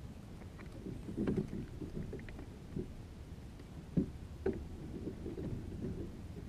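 Handling noises in a plastic fishing kayak: low rubbing and shuffling with a few knocks against the hull, the sharpest about four seconds in, as a freshly caught trout is held and checked.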